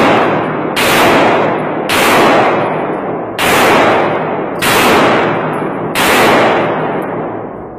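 Handgun fired in a string of five shots, one every second or so, each followed by a long ringing echo off the concrete walls and ceiling of an indoor range.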